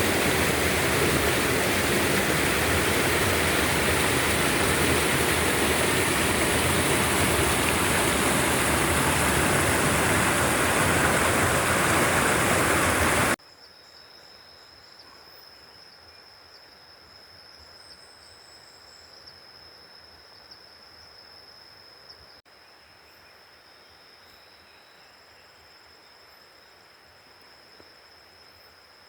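Rushing river water, loud and steady, cutting off suddenly about thirteen seconds in. After that comes a much quieter jungle ambience with one steady, high insect drone.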